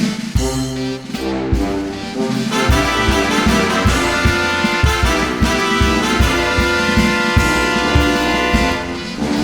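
Background music with brass instruments over a steady beat.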